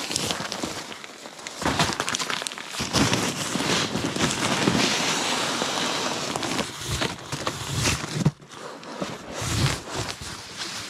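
Nylon inflatable sleeping pad being handled and set up for inflating, its fabric crinkling and rustling, with a dense stretch from about two seconds in to eight seconds in.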